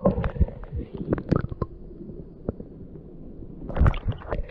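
Muffled underwater rumbling and water sloshing, with irregular knocks and clicks, as the camera is held under the surface of a stream and brought back out; a louder burst of splashing comes near the end.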